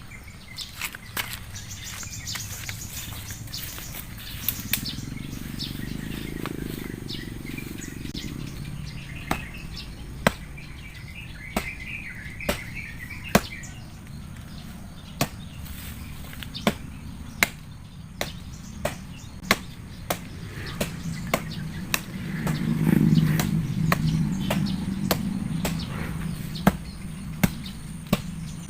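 A blade chopping into a tree to cut it down: sharp, irregular strikes roughly once a second. Birds chirp in the background, and a low rumble swells twice, loudest about three-quarters of the way through.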